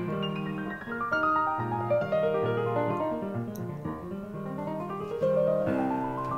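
Background piano music, with runs of notes climbing in pitch in the second half.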